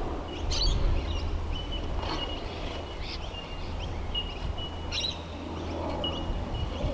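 Birds chirping: many short, high, level notes repeated every half second or so, over a steady low rumble, with a few sharp clicks about half a second, two seconds and five seconds in.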